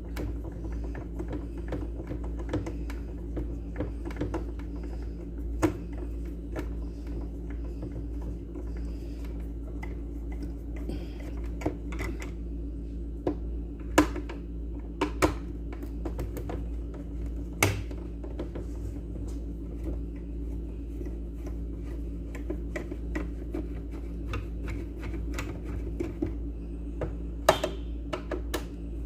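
Scattered small clicks and taps of a small Phillips screwdriver and screws against a mixer grinder's housing as it is taken apart. The louder knocks come a handful of times, over a steady low hum.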